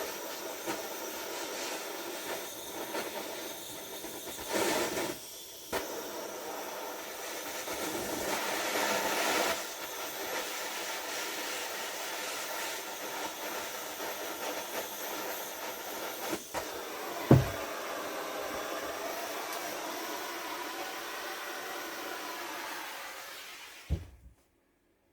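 Handheld gas torch burning with a steady hissing flame, heating a clutch spider to break down its thread-locker. A sharp metallic knock comes partway through, and the flame cuts off suddenly near the end.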